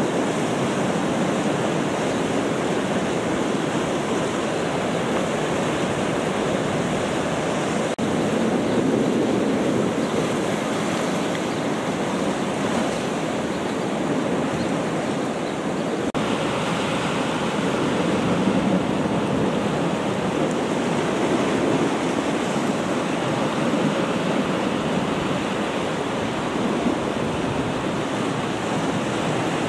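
Sea surf rushing against a rocky shore, a steady roar of water with wind on the microphone; the sound changes abruptly about eight and sixteen seconds in.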